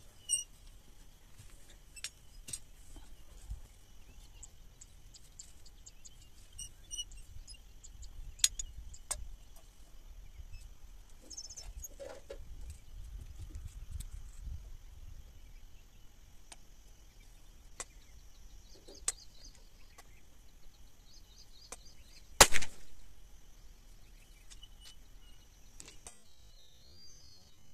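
Scattered light clicks and knocks as a metal pipe tool is handled against a stone block, over a low wind rumble. About 22 seconds in comes one sharp, loud crack.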